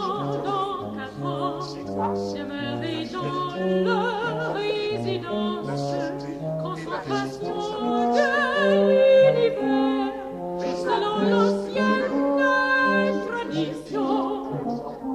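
Contemporary orchestral music in which operatic singing with wide vibrato rises over the orchestra and low brass. A low bass line moves in steps beneath, and it swells loudest about nine seconds in.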